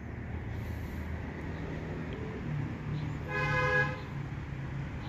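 A vehicle horn toots once, for about half a second, roughly three and a half seconds in, over a steady low hum.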